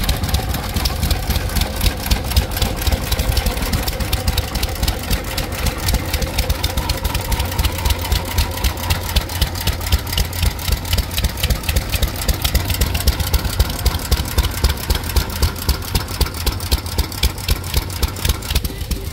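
Antique stationary gas engines running, a rapid, even beat of exhaust pops over a low rumble.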